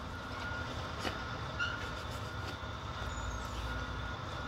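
Steady low rumble of an idling truck, heard from inside the truck's cab, with a faint click or two of cutlery against a plate.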